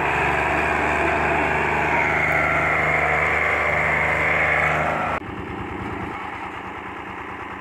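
Al-Ghazi tractor diesel engines running steadily at high revs. About five seconds in they are suddenly throttled back to a quieter, slower, chugging idle.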